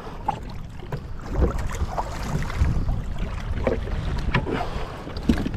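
Choppy seawater sloshing and slapping irregularly against a kayak's hull, with wind buffeting the microphone as a low rumble.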